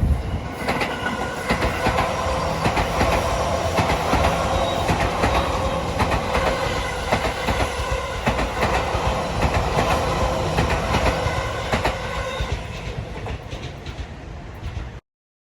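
Odakyu Line electric train running past, its wheels clicking over rail joints over a steady rumble and a motor whine. The sound eases a little near the end, then cuts off abruptly.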